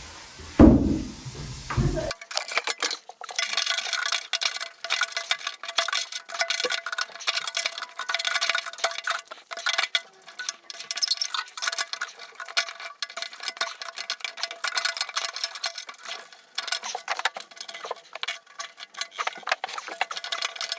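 Rapid, continual clinking and clattering, thin and high with no low end, over a faint steady tone; a single heavy knock comes just before it starts.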